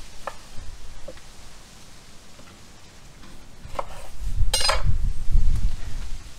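Kitchen knife cutting an orange on a wooden cutting board, with light taps. About four and a half seconds in, a sharp ringing metallic clink, like a utensil knocking the steel tray. A low rumble runs under it for the last two seconds or so.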